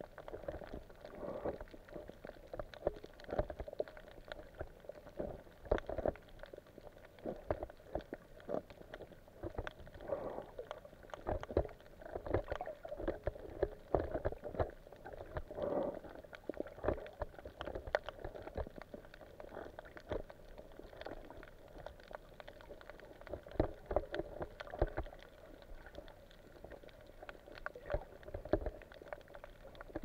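Muffled underwater sound through a camera's waterproof housing: water sloshing and gurgling, with many irregular knocks and clicks.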